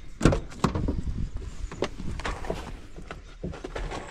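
Footsteps on a driveway, then a van's driver door opening and someone climbing into the seat: a string of irregular knocks and clicks.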